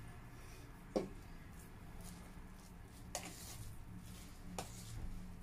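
A serving spoon stirring cooked rice in a metal pot: a few faint knocks and soft scrapes over a low steady hum.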